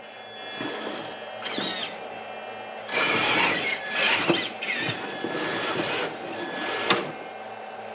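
Electric RC rock crawler, a Traxxas TRX-4 Bronco, being driven: a steady high motor whine with several short, louder high-pitched bursts as it moves, and a sharp click near the end.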